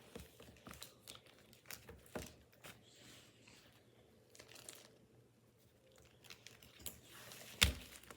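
Thin plastic candy-kit tray being handled and pressed: scattered small crinkles and clicks, with a sharper knock near the end.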